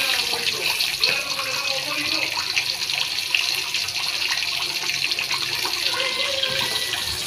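Milkfish frying in hot oil: a steady sizzle with scattered small crackles and pops.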